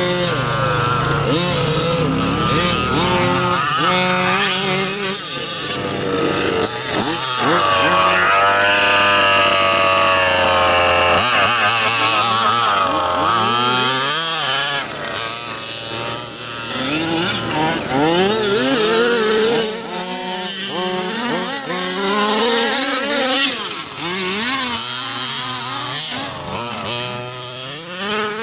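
Several 1/5-scale petrol RC cars' small two-stroke engines revving hard and falling back as they drive, the pitch rising and dropping over and over with engines overlapping.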